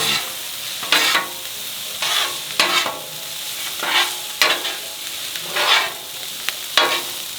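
Food sizzling on a hot hibachi-style griddle while metal spatulas scrape and clack against it, about nine sharp strokes at uneven intervals over the steady frying hiss.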